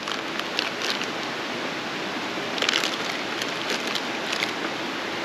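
Steady rush of creek water, with a plastic zip bag crinkling several times as it is handled, loudest about two and a half to three seconds in.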